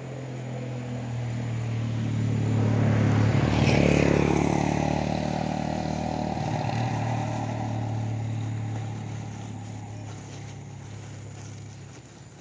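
A motor vehicle driving past: its engine grows louder to a peak about four seconds in, with a falling whine as it goes by, then fades away.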